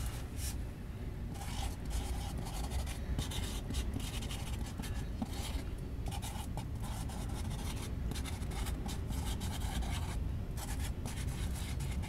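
Freight train of autorack cars rolling past: a steady low rumble with irregular scraping, rustling noise over it.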